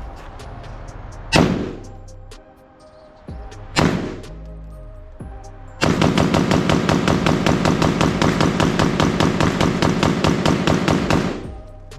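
Bear Creek Arsenal BC-15 AR-15 rifle firing: two single shots about two and a half seconds apart, then a fast, even string of shots lasting about five seconds. The rifle is cycling round after round now that its bolt carrier group has been swapped out.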